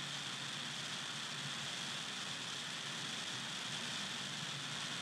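Steady hiss with a faint low hum, unchanging throughout: room tone and microphone noise.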